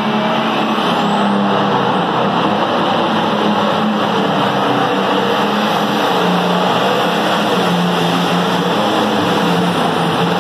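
Competition pulling tractor's engine running loud and hard at high revs as it drags a weight-transfer sled, its pitch shifting a little as it goes.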